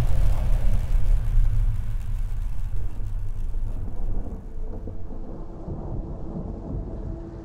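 Deep, noisy rumble from a cinematic soundtrack, slowly dying away. In the second half, faint held tones of an ambient music pad come in.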